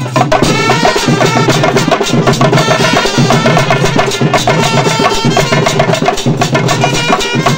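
A street band playing: trumpets carry a tune over dense, steady beats on stick-struck frame drums.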